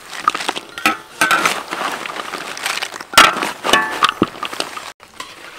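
Metal tongs scraping and clinking against a large wok while stirring a heap of crisp fried jackfruit chips, the chips rustling and crunching as they are turned. A run of short clinks and scrapes, the loudest about three seconds in.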